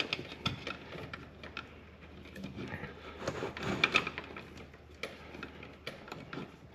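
Handling noise from insulated electrical wire being pulled through metal conduit: irregular scrapes and rustles with light clicks, loudest about three to four seconds in.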